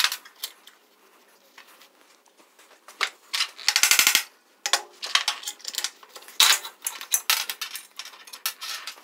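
Metal-on-metal clinks and clatter as bronze bushings and a steel flange are worked out of a steel hinge tube and set down on a steel welding table. Near-quiet at first, then scattered sharp clicks, with a longer clatter about four seconds in.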